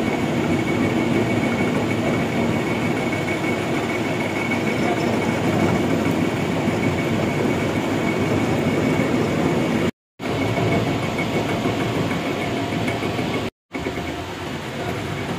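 Steady, dense machine running noise with a faint high whine, cutting out completely twice for a split second.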